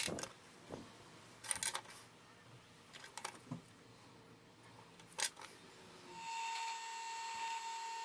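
A few light knocks and clicks as wooden handle scales are handled on a workbench, then, about six seconds in, a power tool's motor starts and runs steadily with a high whine.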